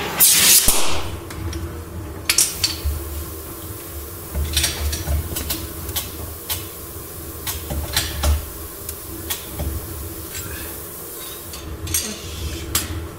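Gas torch hiss on a steel car frame rail ends with a brief loud whoosh at the start. After that come irregular sharp metallic ticks and clinks, about one a second, from the red-hot frame rail under chain pull, over a low steady hum.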